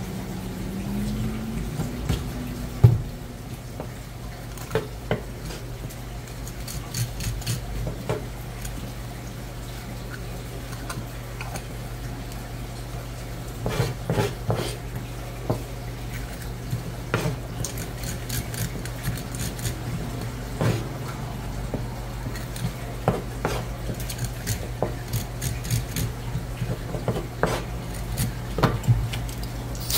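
Knife blade scraping over flatfish and knocking on a wet plastic cutting board, a string of short scrapes and clicks that get busier about halfway through. A steady low hum runs underneath.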